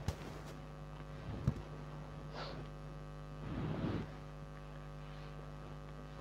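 Steady electrical mains hum, with a short click at the start, another about a second and a half in, and a soft rustle about three and a half seconds in.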